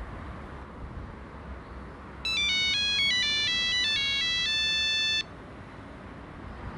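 Mobile phone ringtone: a short electronic melody of quick stepped notes ending on a held note, lasting about three seconds and cutting off suddenly, over a steady low background rumble.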